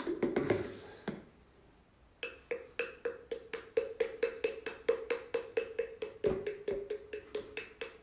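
Regular light tapping, about four taps a second, over a steady hum, starting about two seconds in after a brief lull.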